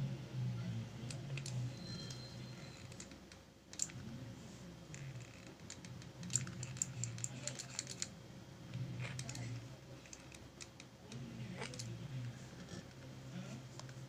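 Light clicks and taps from stones being handled and glued on with a hot glue gun, with a quick run of clicks about halfway through.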